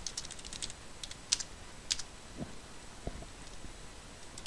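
Computer keyboard typing: a quick run of keystrokes at the start, then a few scattered single key presses.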